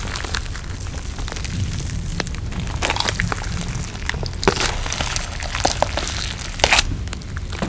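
Close-miked eating sounds: crisp, crackling bites and chewing, with louder crunches about three, four and a half and nearly seven seconds in, over a steady low hum.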